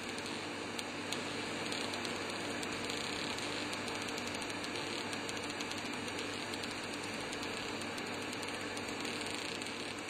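Small receipt printer built into an Indutherm VC 650 V casting machine, printing the casting record: a steady mechanical whirr with fine rapid ticking as the paper feeds out, over a low steady hum.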